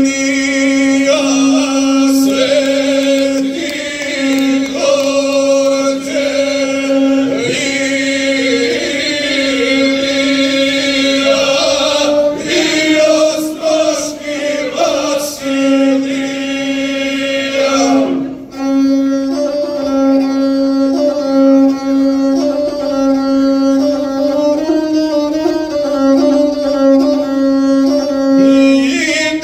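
Gusle, the single-string bowed folk fiddle, played with a man singing an epic song in guslar style. The bowed string holds a steady tone under the voice, with a brief break about two-thirds of the way through.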